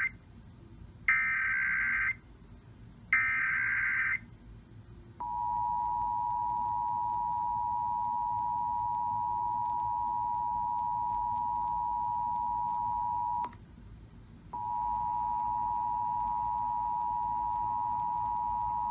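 Emergency Alert System header: short screeching bursts of SAME data tones, then the steady two-tone EAS attention signal. The attention signal breaks off with a click after about eight seconds and starts again a second later.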